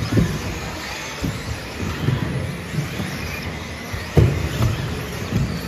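Electric radio-controlled cars running on a carpet track, a faint wavering motor whine over the hall's background noise. Irregular dull knocks come through, the sharpest about four seconds in.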